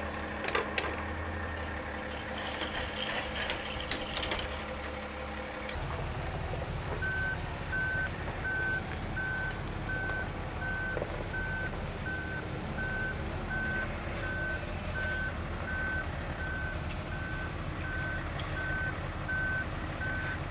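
Wheel loader's backup alarm beeping steadily at about two beeps a second over its diesel engine running. Before that, for the first few seconds, clicks and rattling from a hand steel-banding tool working strapping on a bundle of steel channel.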